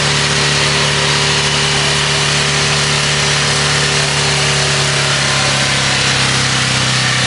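Ford Thunderbird engine held at wide-open throttle with the throttle pinned, being run on purpose until it fails. It runs loud and steady, its pitch dropping slightly near the end.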